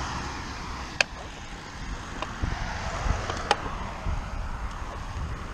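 Wind rumbling on the microphone of a moving bicycle, with a few sharp clicks, the clearest about a second in and about three and a half seconds in.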